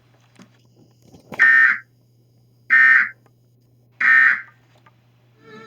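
Emergency Alert System end-of-message data bursts: three short, equal buzzy digital bursts about a second and a half apart, marking the end of the alert message.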